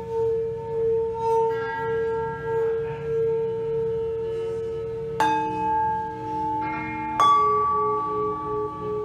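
Metal bowls ringing in long, wavering tones like singing bowls. Two sharp strikes, about five and seven seconds in, each add a new set of ringing pitches.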